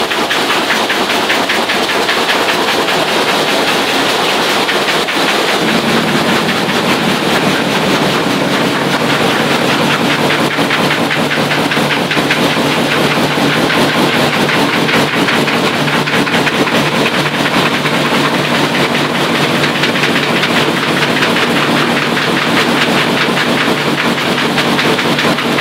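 Sitara-cutting machine running with a loud, fast, steady clatter. A lower steady hum joins about five seconds in.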